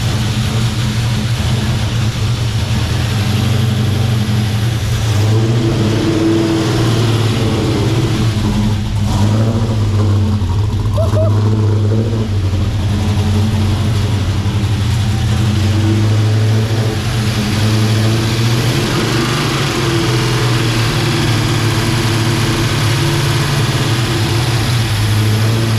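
Freshly fitted LS1 5.7-litre V8 in a Holden VN Commodore running steadily on one of its first runs after being started for the first time.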